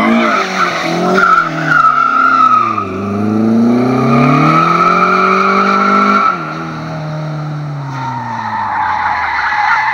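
1984 Audi 80 GTE's four-cylinder engine revving hard while the car slides in circles, its tyres squealing on the tarmac. The engine note climbs about three seconds in, holds high, then drops off a little after six seconds as the squeal carries on.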